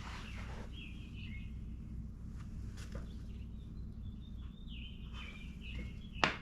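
Birds chirping in the background over a steady low hum, with a few sharp clicks from working on the motorcycle's fairing fasteners, the loudest near the end.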